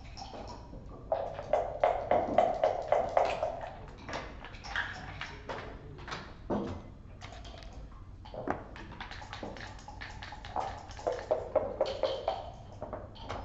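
Backgammon play: sharp clicks and clacks of checkers and dice, with two spells of rapid rattling, one near the start and one near the end.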